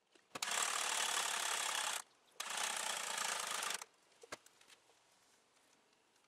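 Starter motor cranking the Jeep Cherokee XJ's engine in two bursts of about a second and a half each, turning the freshly installed WJ power steering pump over to bleed air from the system. A few light clicks follow.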